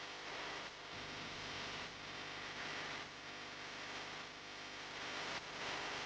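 Rushing wind and water noise on board a racing sailing yacht, swelling and easing every second or so.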